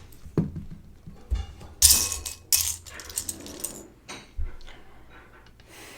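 Plastic Lego pieces clicking and rattling as they are handled and pressed together: a run of sharp clicks, with a louder clatter about two seconds in.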